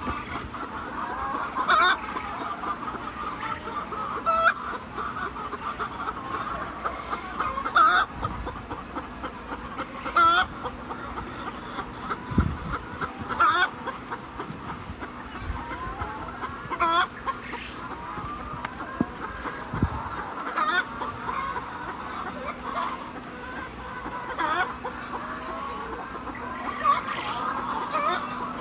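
A flock of laying hens clucking continuously, with a loud, sharp call about every three seconds and a few dull thumps near the middle.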